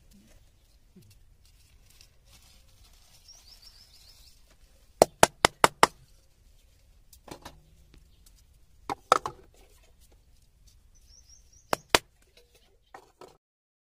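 Sharp, hard knocks of coconut shell halves struck in quick runs: five in rapid succession about five seconds in, three near nine seconds, two near twelve seconds and two faint ones at the end. Faint bird chirps in between.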